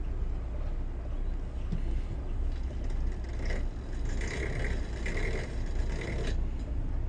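Twin diesel engines of a Bayliner 4788 motor yacht running at low speed while it manoeuvres out of a slip: a steady low rumble.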